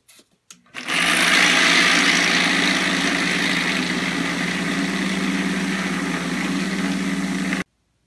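A couple of faint clicks, then a Berry's vibratory case tumbler starts about a second in: a steady motor hum under a loud hiss of walnut media and brass cases churning in the bowl. It cuts off suddenly near the end.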